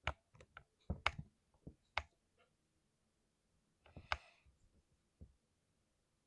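Keys on a 60% mechanical keyboard with lubed switches being pressed in irregular groups: a quick run of keystrokes in the first second or so, one about two seconds in, another short cluster about four seconds in, then a single press.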